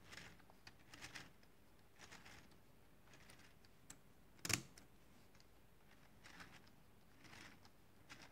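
Faint clicks and rustles of plastic Lego Technic gears and parts being handled and turned, with one sharper click about four and a half seconds in.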